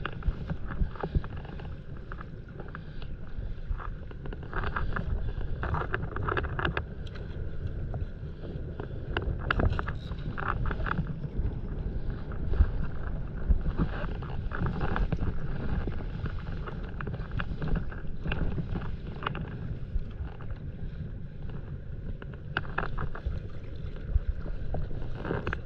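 Wind buffeting the microphone with a steady low rumble, over water lapping and splashing around inflatable paddleboards on the sea, with scattered short splashes and knocks.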